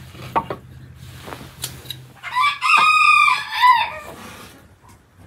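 A rooster crowing once, about two seconds in and lasting under two seconds, with a few light knocks before it.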